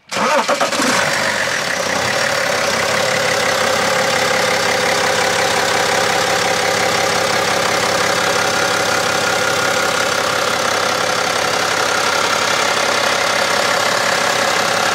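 BMW E60-series diesel engine cranking and catching within about a second, then settling into a steady idle.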